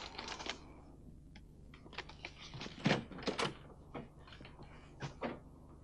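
A few soft, irregular knocks and clicks of an interior door being handled.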